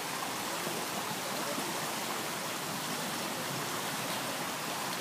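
Steady, even rushing noise of a large indoor pool hall, like running water, with no distinct events.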